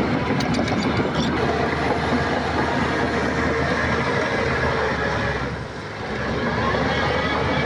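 Crawler bulldozer working, its diesel engine running under load with a steady metallic clatter of steel tracks; the noise dips briefly about six seconds in.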